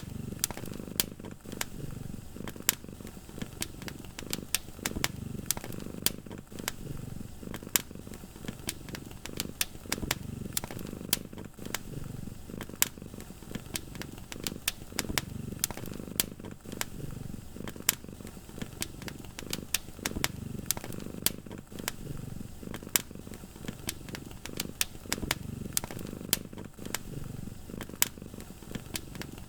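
A cat purring steadily, its low rumble swelling and fading about every two seconds, over a wood fire crackling with frequent sharp, irregular pops.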